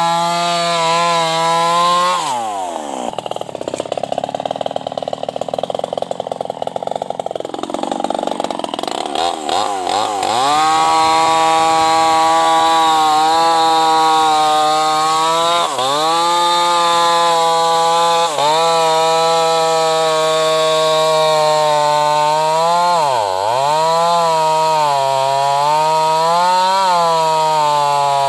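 New West 588 two-stroke chainsaw with an open, straight-through muffler running at high revs. It drops to a low, ragged idle about two seconds in, is revved back up about ten seconds in and held high, and its pitch dips briefly several times.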